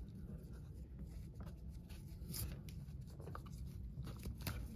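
Faint rustling and scattered small clicks of hands unwinding a toy wrestling ring's bundled elastic ring ropes and their plastic turnbuckle pieces.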